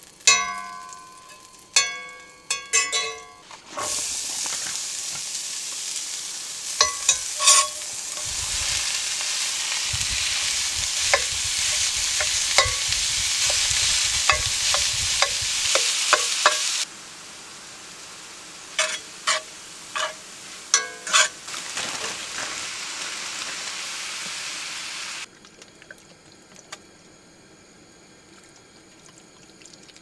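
Food frying in a pan, sizzling and being stirred, with sharp clinks of a metal utensil against the pan. It opens with a few ringing clinks, then the sizzle starts. The sizzle drops sharply in level a little past halfway and stops near the end.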